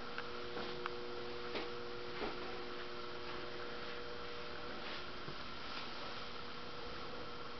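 Quiet room tone with a steady electrical hum. A few faint ticks come in the first two or three seconds.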